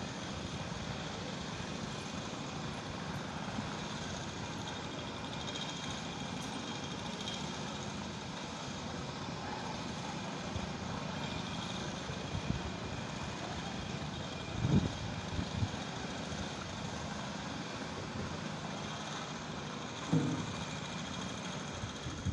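Steady running of construction-site machinery, an engine-driven machine such as a concrete mixer, with two short low thumps in the second half.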